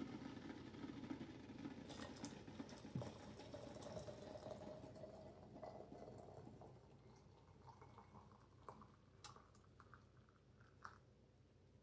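Hot water poured from a stainless-steel electric kettle into a thin porcelain lusterware teapot: a faint pour whose filling tone rises slowly as the pot fills, after a low rumble that fades in the first few seconds.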